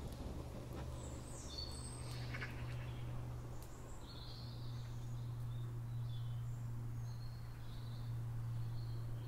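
Outdoor woodland ambience: birds chirping faintly now and then over a steady low hum.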